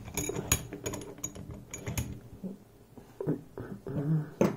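Small metal clicks and knocks from handling a lock cylinder and tools on a worktable, quick and clustered at first, then a few scattered knocks and a short scrape.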